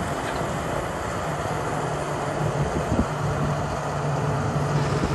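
Kobelco SK380SR excavator's diesel engine running steadily, a low steady hum setting in about a second in.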